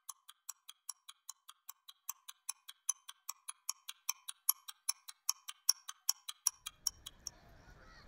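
Rapid, even ticking, about five sharp, high ticks a second, like a clock sound effect; it stops about seven seconds in as faint outdoor background noise with a low rumble fades in.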